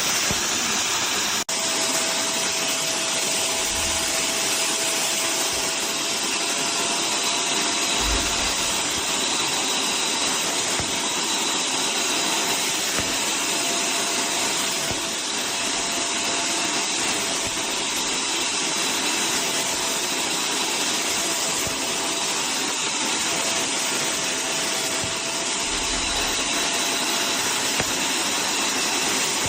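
Portable upholstery and carpet wet vacuum running steadily, its suction motor pulling water back out of fabric with a thin steady whine. There is a brief click and dropout about a second and a half in, and a few soft low thumps.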